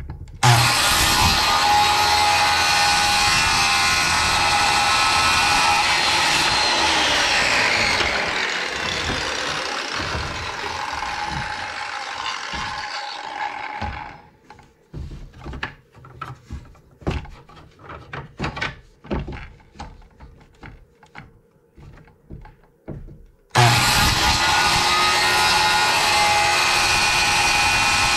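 Electric power saw running and cutting wood, starting suddenly and stopping abruptly about fourteen seconds in. Next comes a spell of separate knocks and clatter from wood being handled. About twenty-three seconds in, the saw starts again.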